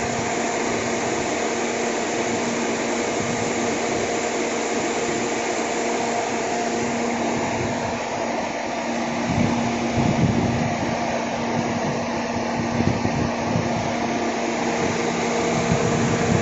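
Toyota Corolla 4A-FE four-cylinder engine running at a raised idle with the air conditioning on, under a steady whir with a constant hum. It gets a little louder and rougher about ten seconds in.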